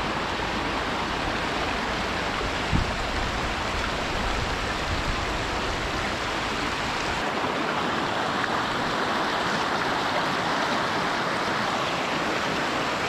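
Steady rushing water, as of a stream, with a low rumble underneath that stops abruptly about seven seconds in.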